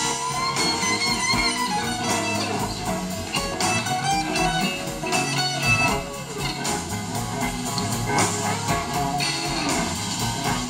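Live blues-rock band playing an instrumental passage: electric guitars over drums and bass.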